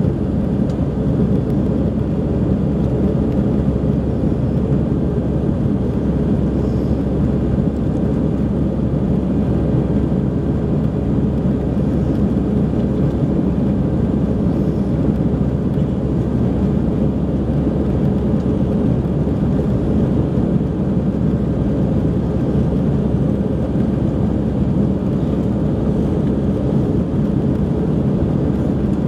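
Steady low roar of an Airbus A319-100's engines and rushing air, heard inside the passenger cabin during the climb after takeoff.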